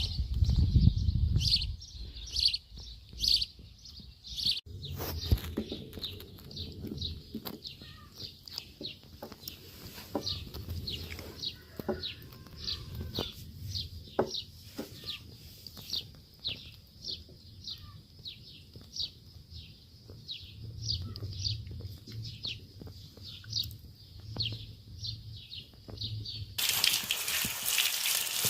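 A bird chirping over and over, short high chirps two or three times a second. Near the end it gives way suddenly to running water.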